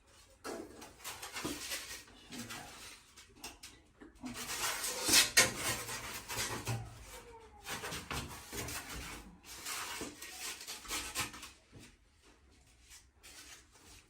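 Irregular scraping, rubbing and light knocks of laminate flooring boards being handled and fitted into place, with a louder stretch of handling about four to six seconds in.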